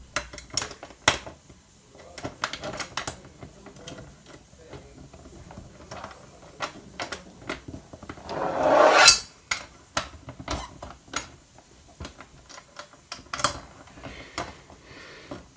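Irregular metal clicks and clinks of a steel TV mount bracket and its mounting screw being handled and turned in by hand against the back of a TV. About eight seconds in, a louder rising rasp builds for a second and cuts off abruptly.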